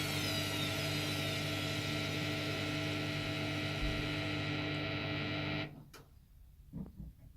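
Hoover 7 kg washing machine humming steadily with a held whine, cutting off suddenly about five and a half seconds in, then two faint clicks. This is the machine in a sudslock after the second rinse of a baby 60° cycle.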